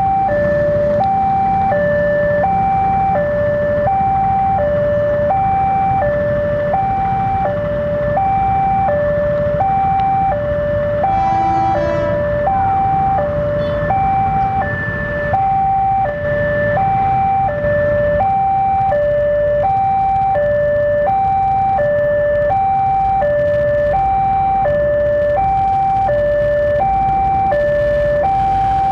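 Railway level-crossing warning alarm sounding a steady electronic two-tone chime, alternating high and low notes about every three-quarters of a second: the crossing signal warning that a train is approaching. A low rumbling noise runs underneath.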